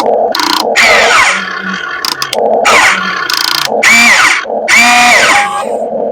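Radio-controlled model excavator's small electric motors and hydraulic pump whining in short stop-start bursts as the controls are worked, the whine rising and falling in pitch.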